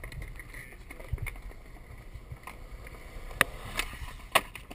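Skateboard wheels rolling on concrete, then sharp wooden clacks near the end: the tail popping for a pop shove-it, and the board slapping back down.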